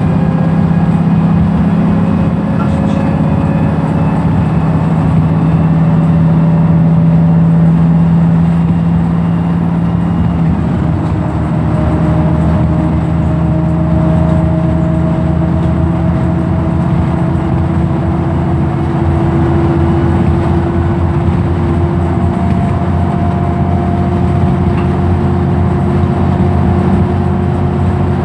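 Wright Pulsar single-deck bus heard from inside the passenger saloon while cruising: a steady engine and drivetrain drone with a whine that slowly rises in pitch as the bus gathers speed. The engine note shifts about ten seconds in.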